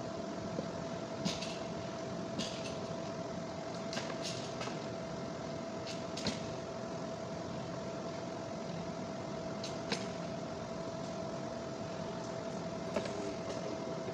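About nine or ten light, irregular clicks and taps from hands working with electrical wiring. Underneath runs a steady hum with one constant high tone.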